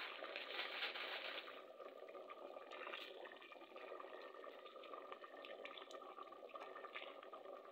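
Potato-and-egg curry gravy simmering and bubbling in a metal pot, a wooden spoon stirring through it. It is a little louder in the first second and a half, then settles to a steady bubbling.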